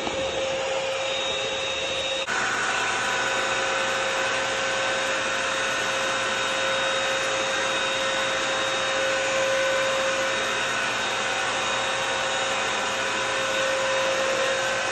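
Bissell CrossWave wet-dry vacuum running steadily in hard-floor mode, its motor and spinning brush roll working a tiled floor, with a steady tone over the motor noise. The sound shifts slightly about two seconds in.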